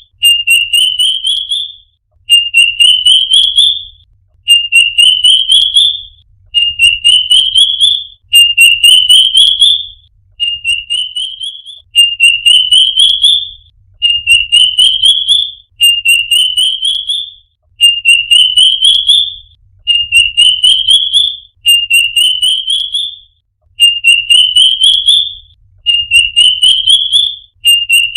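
A bird singing the same short phrase over and over, about every two seconds: a quick run of notes climbing steadily in pitch, each phrase lasting about a second and a half.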